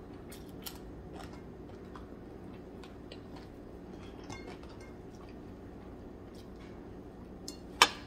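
Scattered faint clicks and light clinks of fingers picking food from a ceramic plate, over a steady low room hum. One sharp, much louder knock near the end.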